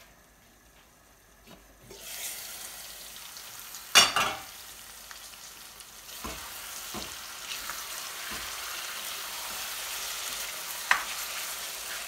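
Lamb and spice masala sizzling in an aluminium pan on a gas hob. The sizzle starts about two seconds in, once the lid is lifted after a nearly quiet start. There is a loud metal clatter of the lid about four seconds in, then a spatula stirring and scraping the thick masala, which is catching on the bottom of the pan but not burning, with a few knocks against the pan.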